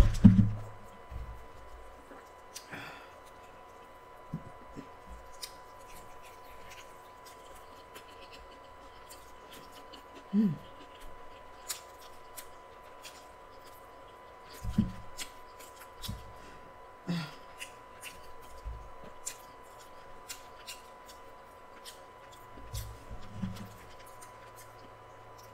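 Close-miked chewing of a fried chicken sandwich: scattered crisp, crunchy mouth clicks, with a few short low mouth sounds spread through. There is a thump right at the start.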